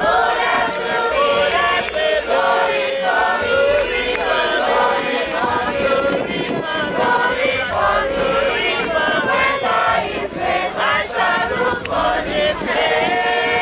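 A large group of voices singing a song together, with held notes at the start and near the end.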